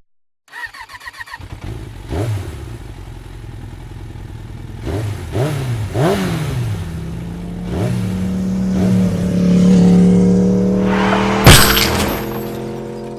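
Motorcycle engine revving in a series of short rising-and-falling throttle blips, over background music with a held low note. A single sharp, loud impact hits about eleven and a half seconds in.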